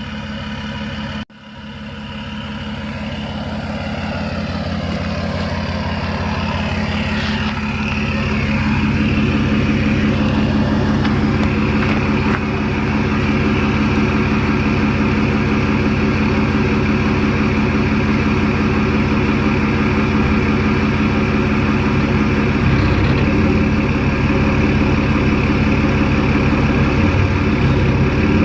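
EcoDiesel 3.0 L V6 turbodiesel, tuned and with its emissions equipment deleted (delete pipe and custom cat-back exhaust), running steadily through the loud exhaust. During the first ten seconds a higher whistle rises and falls as the sound grows louder, and it cuts out briefly about a second in.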